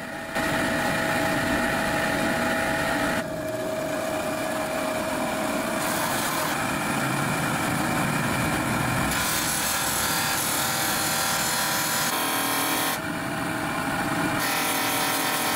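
Steel sword blade held against a spinning abrasive grinding wheel, a steady rasping grind during finish grinding. The grinding sound changes abruptly several times.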